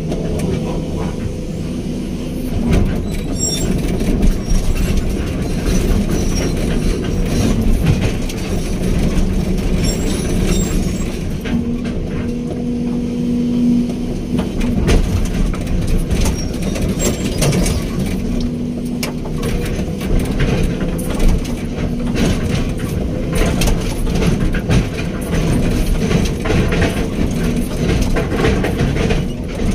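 Hydraulic excavator working: its diesel engine runs steadily under load, with a whine that comes and goes as the hydraulics work, and scattered clanks and knocks throughout.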